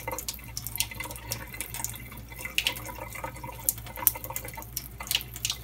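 Water trickling and dripping into a sink, with irregular small splashes over a steady low hum.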